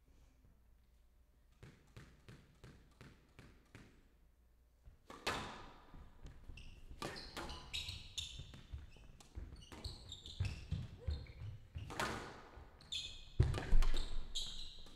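Squash ball bounced on the court floor several times, evenly spaced, before the serve. Then a rally: the ball cracks off rackets and the walls, mixed with short squeaks that fit rubber-soled shoes on the court floor. The loudest thump comes near the end.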